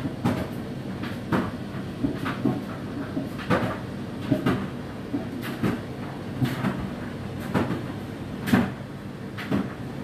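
Whirlpool WFO3P33DLXUK dishwasher running a 65 °C wash: a steady motor hum with irregular knocks from inside the machine, roughly one or two a second, the loudest near the end.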